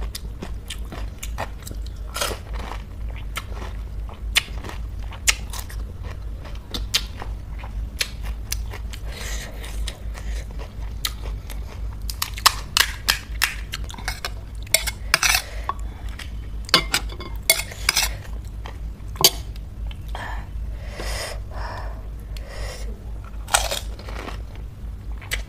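Close-up chewing and crunching of pani puri, the crisp hollow puri shells cracking between the teeth in many irregular crunches and clicks.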